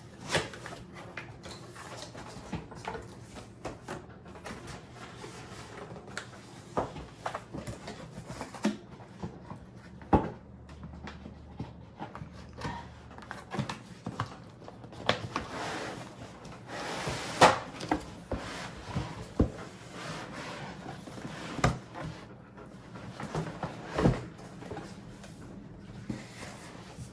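Robot vacuum being unpacked from its cardboard box: irregular knocks and clicks of cardboard and packaging being handled, with stretches of rubbing and rustling.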